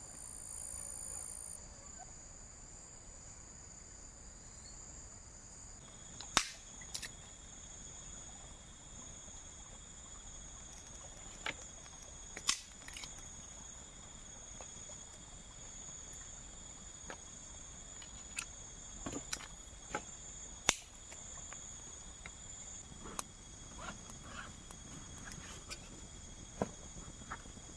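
Crickets trilling steadily in high tones, with scattered sharp knocks and clicks at irregular intervals, a few of them much louder than the rest.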